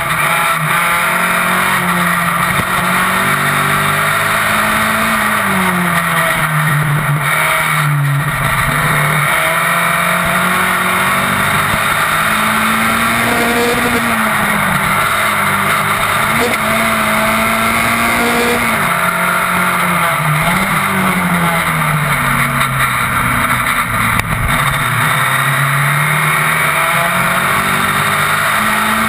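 Onboard sound of an open-wheel single-seater racing car at racing speed: the engine's revs repeatedly climb and then drop back through gear changes and corners, over a constant loud rush of wind and road noise.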